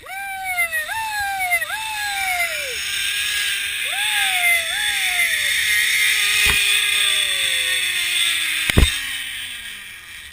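Zip line trolley pulleys running along a steel cable: a whir that rises in pitch and then slowly falls as the ride slows, over a hiss of rushing air. Several short high cries falling in pitch come in the first half, and two sharp knocks near the end, the second the loudest, as the rider comes in to the platform.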